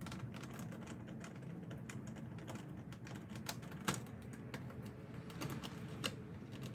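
Scattered, irregular light clicks and taps of a Torx screwdriver and screws working on a car's plastic interior door panel, the loudest about four seconds in.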